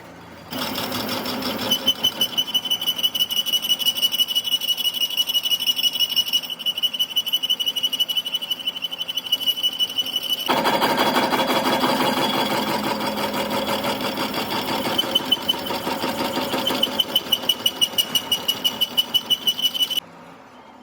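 A machine running with a fast, even pulse and a steady high whine; its sound changes about halfway through, then it cuts off suddenly near the end.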